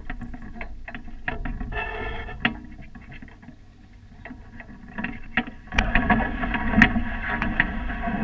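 Clinks, taps and knocks from a Nacra 570 beach catamaran's rigging and hull as it is handled at the water's edge, over a low wind rumble on the boat-mounted microphone that grows stronger about six seconds in.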